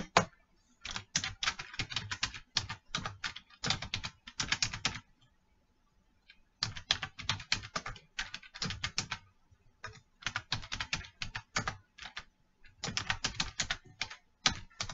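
Typing on a computer keyboard: rapid key clicks in several bursts, with short pauses between them.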